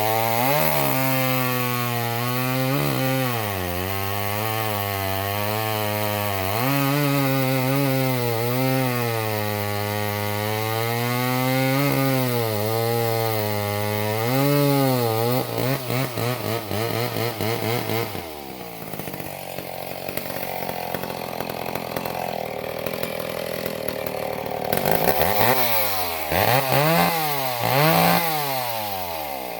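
Vintage McCulloch 10-10A two-stroke chainsaw with a full-skip chain cutting into beech, its engine pitch sagging and recovering under load. About halfway through it runs unevenly for a few seconds and settles to a lower, steadier run. Near the end it is revved in about three short blips.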